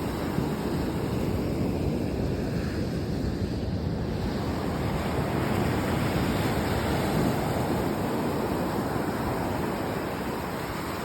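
Sea waves breaking and washing in a steady, unbroken wash of surf, with wind on the microphone.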